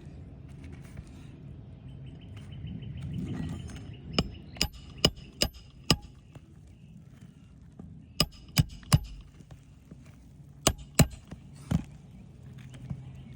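Hammer driving roofing nails to refasten an asphalt shingle: three runs of sharp ringing metal strikes, five, then three, then three, over a low steady hum.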